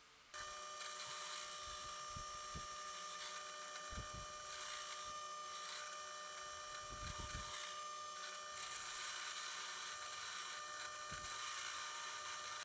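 Power tool's electric motor running steadily with a whine, starting and stopping abruptly, with a few low knocks of handling along the way.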